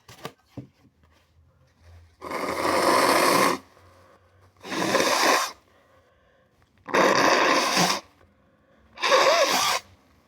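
A person blowing their nose hard four times, each blow lasting about a second, the first the longest and the last with a brief honking tone.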